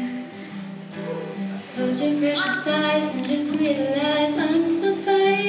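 A young woman singing to her own acoustic guitar accompaniment. The guitar is quieter at first, and her voice comes in louder about two seconds in.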